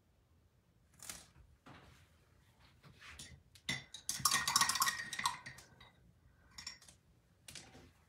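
A paintbrush clinking and rattling against a hard jar for about a second, after a sharp click, with a few lighter taps and knocks around it.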